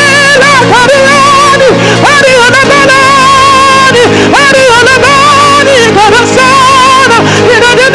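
Live gospel worship music: steady held keyboard chords under a lead melody of long, wavering notes that slide up and down between pitches.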